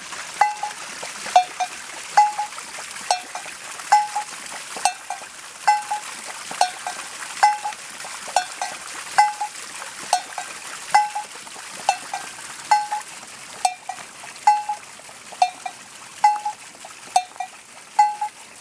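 Water dripping steadily into standing water, each drop a short pitched plink, about two a second and alternating between two slightly different pitches, over a faint trickle.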